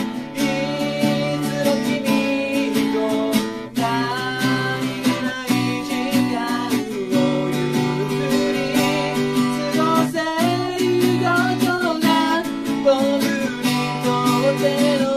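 A man singing a slow song while strumming chords on a Yamaha acoustic guitar.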